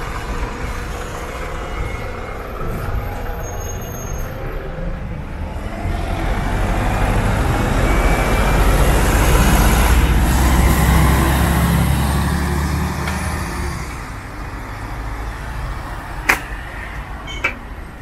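Golden Arrow city bus's diesel engine running close by: a low rumble that swells to its loudest around the middle and then fades away, over steady street traffic noise. Two sharp clicks near the end.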